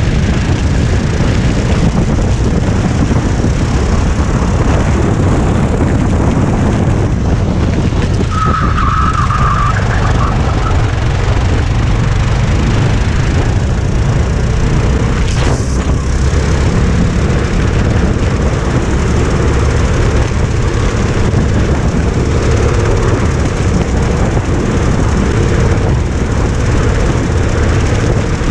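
Go-kart engine running at racing speed, heard from the driver's seat, with a brief high squeal about eight seconds in.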